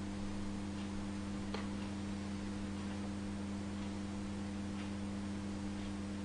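Steady low electrical hum of room tone, with a few faint, soft clicks scattered through it.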